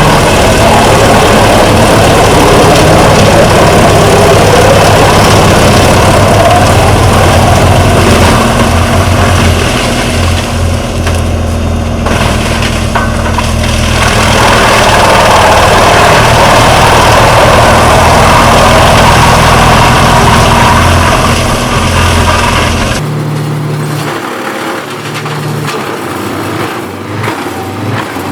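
A large engine-driven wood chipper running: a steady, loud engine drone with a rough noise over it. About three-quarters of the way through, the sound changes abruptly to a quieter machine without the deep engine drone.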